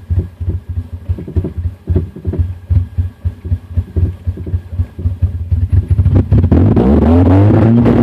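2000 Honda CR-V's B20Z 2.0-litre four-cylinder engine stumbling at a very low idle with uneven, irregular pulses, the sign of a misfire. About six seconds in it is revved, rising smoothly to nearly 4,000 rpm and running steadily. Heard inside the cabin.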